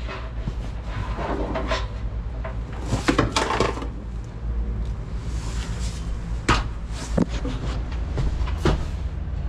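Handling noise as a heavy battery cable is fed under an air compressor's tank: a few sharp knocks and clicks with rustling between them, over a steady low hum.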